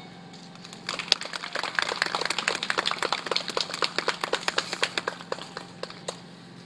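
Scattered hand clapping from a small audience: quick, uneven claps start about a second in and thin out to a few stray claps near the end.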